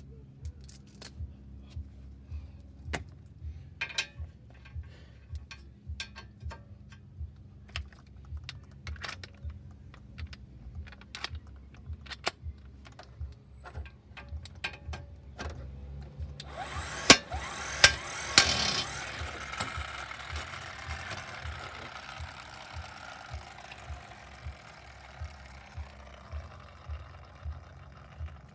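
Mechanic's tools working on car suspension bolts: a run of small metallic clicks and knocks. About two-thirds of the way in comes a loud burst of mechanical noise with three sharp bangs, which dies away over several seconds with a falling tone. A steady low hum runs underneath.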